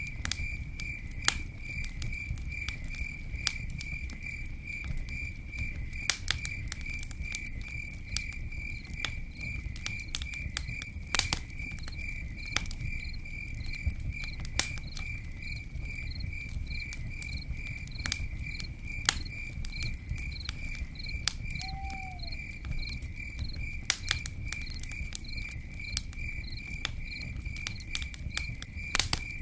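Campfire burning with a low steady rumble and irregular sharp crackles and pops. A cricket chirps steadily throughout, about three chirps a second. A single short falling call sounds about three-quarters of the way through.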